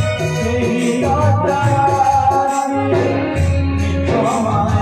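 An Odia song with a singing voice over a steady low drum beat and shaker-like percussion.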